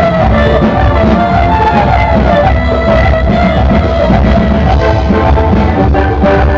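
A live band playing loud, amplified music, with a steady drum beat under a bass line and sustained melody lines.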